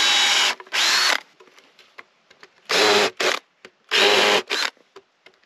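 Makita cordless drill-driver running in several short trigger bursts into a wooden board: a longer run ends about half a second in, then there are brief pulses near one, three and four seconds in, each with a motor whine.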